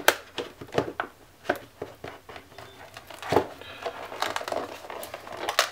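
Cardboard box and clear plastic packaging sleeve being handled and slid open. Crinkling and rustling, with a string of sharp clicks and taps.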